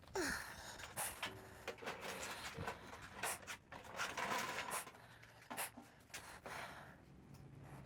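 Irregular knocks and clatter, many sharp hits in quick, uneven succession with a few brief ringing tones between them.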